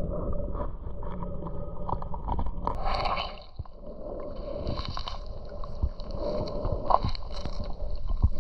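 Muffled sound of moving water picked up by a camera underwater in shallow sea: a low rumble with scattered sharp clicks and crackles, and brief hissing swells about three, five and seven seconds in.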